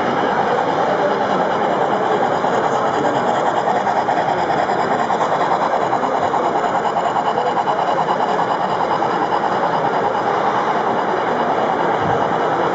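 Model railway locomotive and coaches running along the track: a steady, fast mechanical rattle of wheels and drive.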